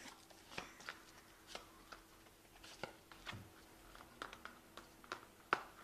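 Faint, scattered soft clicks and brushing noises of tarot cards being handled and drawn from a deck, a dozen or so small taps and slides at uneven intervals.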